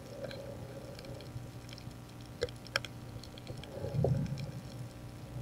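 Underwater sound of a night dive over a reef: scattered sharp clicks and crackles over a low steady hum, with a louder, muffled low rush about four seconds in.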